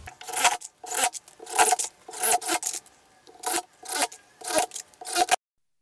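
Cordless impact driver driving screws into SPF softwood: a quick series of short bursts, about two a second. It cuts off abruptly about five seconds in.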